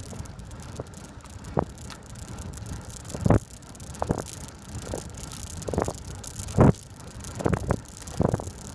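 Bicycle ride: steady wind and tyre noise, broken by about seven short knocks and rattles at uneven intervals as the bike jolts over bumps in the road. The loudest two come about a third of the way in and about three quarters of the way in.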